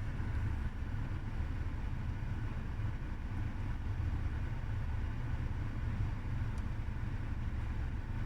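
Lada Vesta's 1.8-litre four-cylinder engine idling steadily, a low, even rumble.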